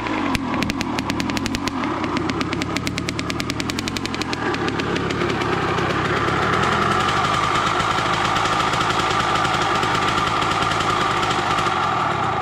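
Kawasaki KX100's two-stroke single-cylinder engine running on its first startup after a rebuild. Its separate firing pulses come closer together over the first few seconds, and it settles into a steadier, higher-revving note from about halfway through.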